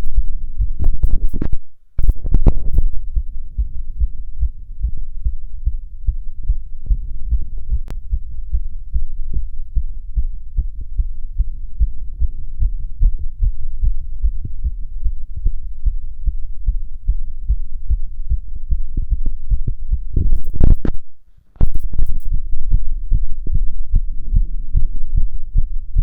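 Fast, regular human heartbeat heard through a stethoscope on the chest, with nothing abnormal in it. Twice, near the start and toward the end, there is a louder scraping noise followed by a brief cut-out.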